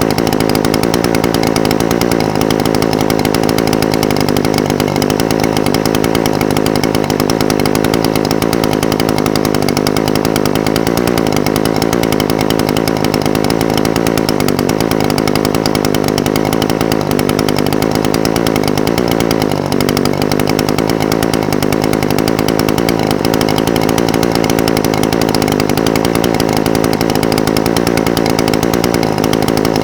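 Echo SRM-420TES brush cutter's small two-stroke engine idling steadily, its pitch wavering slightly as it runs.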